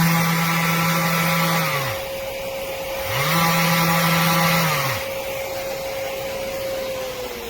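Electric random orbital sander running with a steady high motor whine. A deeper motor note swells up and dies away twice, about two seconds each time, and the whine falls in pitch near the end as the motor spins down.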